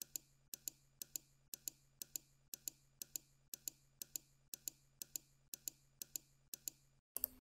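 Clock-like ticking, a quick double click repeating about twice a second over a faint steady low hum; it stops about seven seconds in, followed by one short burst.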